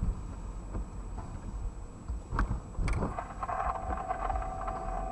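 Car cabin noise while driving slowly: a steady low engine and road rumble, with two short sharp clicks about two and a half and three seconds in.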